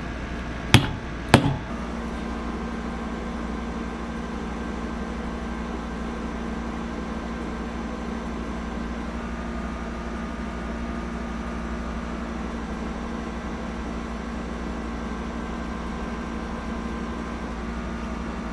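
Two sharp clicks about half a second apart near the start, then a steady machine hum with a low drone that runs on unchanged.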